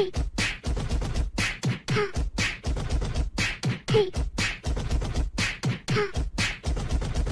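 Beatboxing: mouth-made percussion in an even rhythm of about four beats a second, with a short voiced blip about every two seconds.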